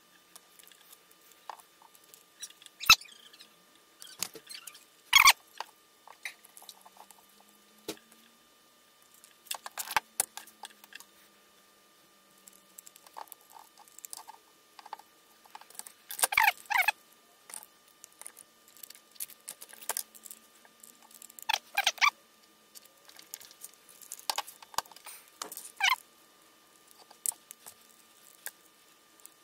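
Plastic and metal parts of a Hitachi angle grinder clicking and scraping as the tool is reassembled by hand after servicing. Scattered sharp clicks and short scrapes come a few seconds apart, with the loudest around three, five, sixteen, twenty-two and twenty-six seconds in.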